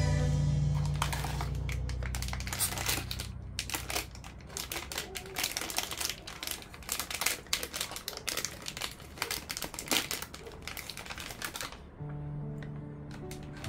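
Foil blind-box bag crinkling and crackling in rapid irregular clicks as hands tear it open and pull out the figure, stopping about a second before the end.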